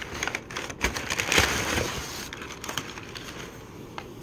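Crumpled brown kraft packing paper being pulled and pushed aside in a cardboard box, rustling and crackling, busiest about a second in and then lighter.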